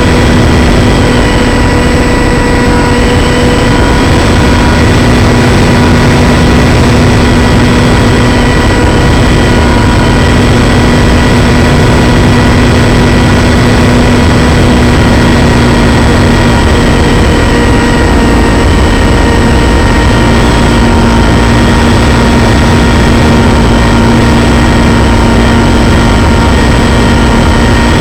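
RC plane's motor and propeller heard from on board, a loud steady drone with wind rushing over the microphone. The pitch holds steady, dipping slightly for a few seconds past the middle before returning.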